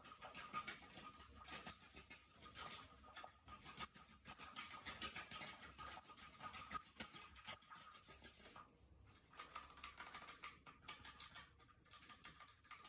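Faint scratching and small irregular clicks, with a faint steady high-pitched tone underneath; the scratching briefly drops away a little before the middle and then resumes.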